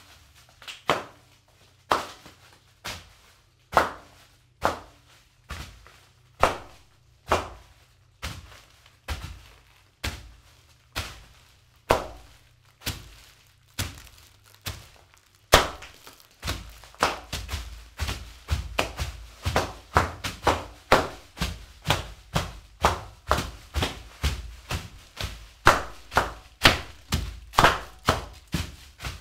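Bare feet stepping on and crunching foil-wrapped fortune cookies, one sharp crunch per step. The steps come about once a second at first, then quicken to about two a second from about halfway, with heavier thuds.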